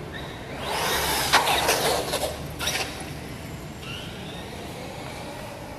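Thunder Tiger MT4 G3 electric RC monster truck driving fast past the camera: a rush of motor and tyre noise lasting about two seconds, with a few sharp knocks, then fading away.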